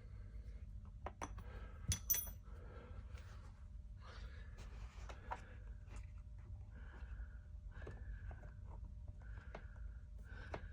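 Hand work on car trim: a few light clicks and a sharp metallic clink about two seconds in, then a run of short, similar-pitched squeaks spaced about a second apart, over a low steady hum.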